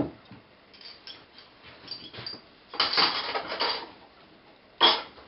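A wooden board of a hand-made cart knocks as it is set against a wall. Then comes about a second of rattling clatter and another sharp knock as parts are put down on a kitchen worktop.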